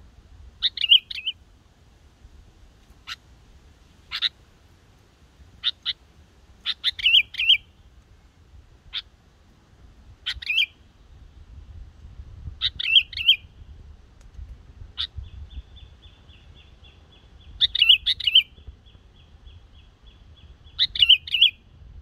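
Young caged black-headed, yellow-vented bulbul practising its song: short bubbly phrases of a few notes repeated every few seconds, with single sharp chips in between. A thin, steady, buzzing trill runs beneath the song for a few seconds in the second half.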